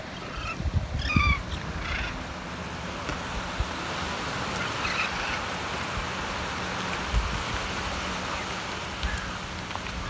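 Surf washing onto a sand beach, with a steady hiss that swells through the middle, and wind rumbling on the microphone. A few short, chirping bird calls come in the first two seconds.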